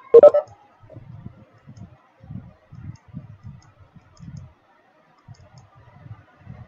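Irregular soft clicks and low knocks from computer keyboard and mouse use, picked up by an open online-meeting microphone. One louder, sharper knock comes just after the start.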